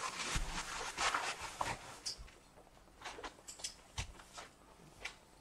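Paper wrapping crinkling and tearing as a package is unwrapped by hand: a dense crackle for about the first two seconds, then scattered crackles and taps.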